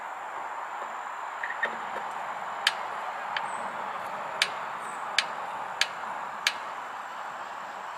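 A screwdriver turning a levelling screw in a wooden stand: a series of about seven sharp clicks, roughly half a second to a second apart, over a steady background hiss.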